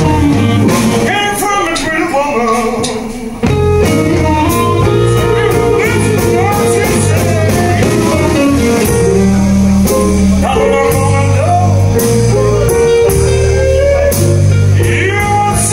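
Live blues band playing: a singer over electric guitar, keyboard, bass and drums. About three seconds in, the band comes in fuller and louder.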